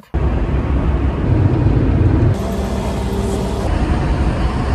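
Steady rumble of road and engine noise inside the cabin of a car driving on a motorway. The sound changes abruptly twice, at about two and a half seconds and again near four seconds.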